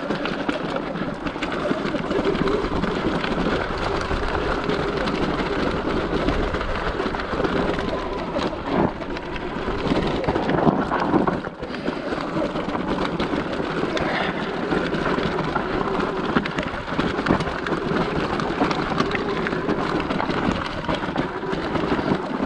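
Sur Ron X electric dirt bike rolling down a loose rocky mountain trail in regen mode, the motor braking the bike. The tyres crunch and the bike rattles over rock in a steady rush, with small knocks throughout and wind rumbling on the microphone.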